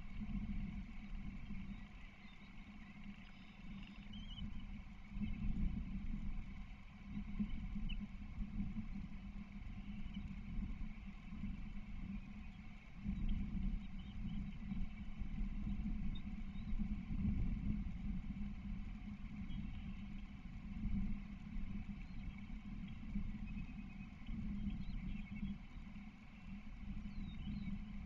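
Wind buffeting the nest camera's outdoor microphone: a low, uneven rumble that swells and fades in gusts.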